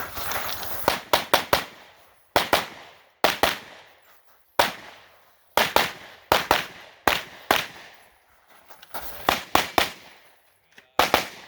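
Rapid gunshots from a shooting stage: about twenty sharp reports, many fired as quick pairs, with short pauses between groups of shots as the shooter moves between targets.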